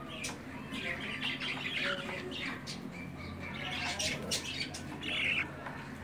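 Budgerigar chicks calling with a stream of short squawks and chirps, one louder call about five seconds in.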